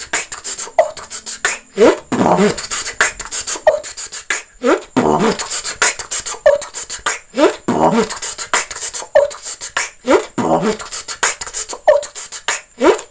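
Solo beatboxing: a mouth-made beat of sharp clicks and short deeper vocal hits, repeating as a loop about every two and a half to three seconds.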